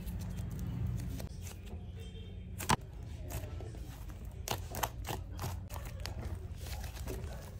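Fluffy shaving-foam slime being squeezed and folded by hand as purple soft clay is kneaded into it, giving irregular sticky clicks and pops. The loudest is a sharp pop about two and a half seconds in.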